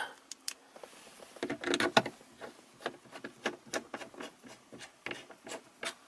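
Irregular light clicks and rubbing noises of hands handling the car's plastic dashboard and console trim, some sharper knocks among softer scuffs.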